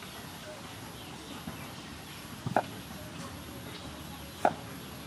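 Cleaver slicing ginger and striking a round wooden chopping board: two sharp knocks about two seconds apart, over a steady low background hiss.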